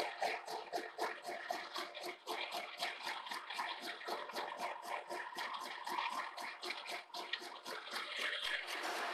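Fly cutter on a horizontal boring mill face-milling the end of a welded steel column. Its single lathe insert strikes the steel in a fast, even rhythm of about five cuts a second over a steady hiss of cutting. This is an interrupted cut taking off up to an eighth of an inch where welding warped the face.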